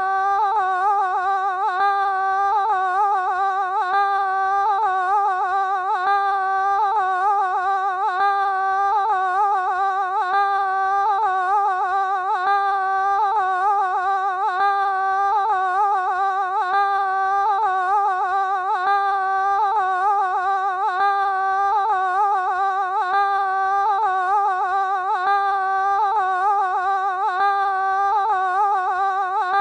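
One sustained high-pitched tone with a few overtones, held without a break and wavering regularly in pitch, like an endlessly drawn-out 'weee'. There is no engine or cabin rumble beneath it.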